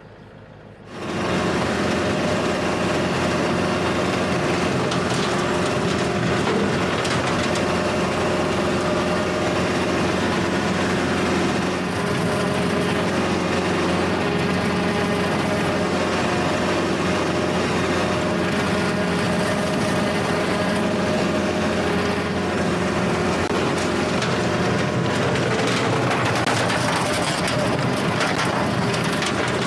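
Kubota L4701 tractor's diesel engine running steadily. It comes in loud about a second in, after a moment of low background sound.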